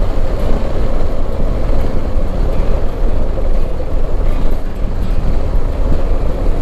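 Motorcycle ridden at a steady cruising speed: engine and road noise run on without change, under a heavy low rumble.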